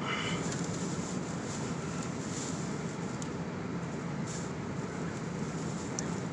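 Strong wind rushing steadily against a pickup truck, with blown sand hissing and ticking on its body and paint, heard from inside the cab.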